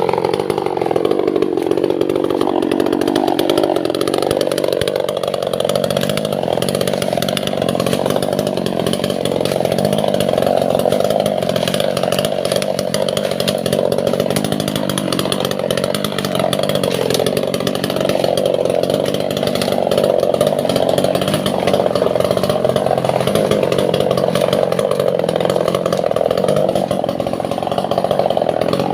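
Two-stroke chainsaw running under load, cutting albasia (sengon) wood; its engine note sags and recovers about a second in, then holds steady with small wavers as the chain bites.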